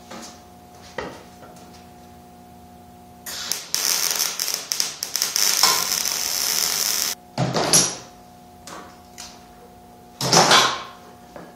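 MIG welder arc crackling and sizzling for about four seconds, laying a weld on the steel chassis frame, over a steady electrical hum. Two short, loud bursts of noise follow, one about a second after the weld stops and one near the end.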